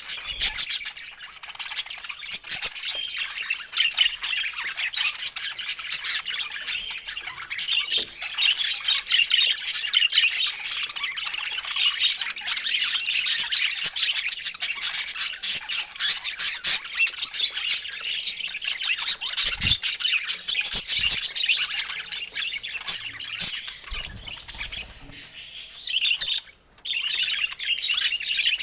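Budgerigar chatter: a dense, continuous stream of rapid chirps and squawks, broken by a brief pause near the end.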